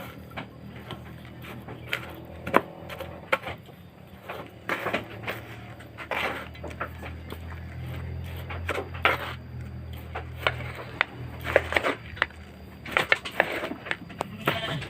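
Irregular clicks and knocks, like objects being handled, over a low steady hum that grows louder about eight seconds in and eases off about four seconds later.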